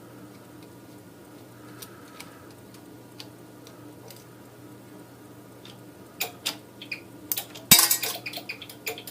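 Metal tools and small hardware clinking and clanking while a UPS battery's fusible link is unscrewed and disconnected: a few faint ticks, then a quick run of sharp clinks from about two-thirds of the way in, the loudest a little before the end. A low steady hum sits underneath.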